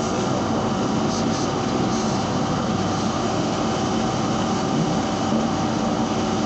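Steady mechanical hum of workshop machinery running, with a few constant tones over an even drone and no change in level.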